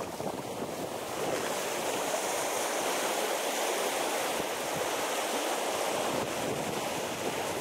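Small waves washing and splashing in shallow sea water: a steady rushing noise, a little louder from about one to six seconds in.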